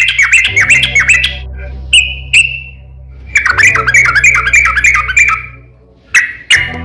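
A crokcokan songbird in full song, giving fast runs of sharp, repeated down-slurred notes in bursts: one at the start, two single notes a little later, a long run in the middle and a short one near the end. A steady low hum runs underneath.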